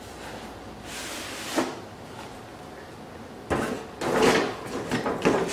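Large cardboard shoe box being opened: the lid sliding off with a knock about a second and a half in. Near the end comes a louder stretch of rustling and handling of the box and the fabric dust bags inside it.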